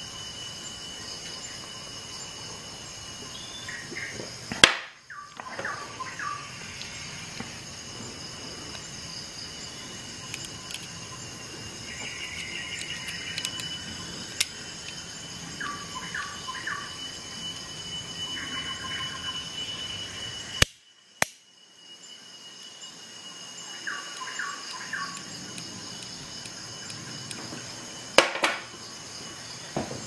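A few sharp clicks and knocks from handling a Leatherman Surge multitool and a wine glass on a glass desktop, over a steady high-pitched whine. Short chirping sounds come and go.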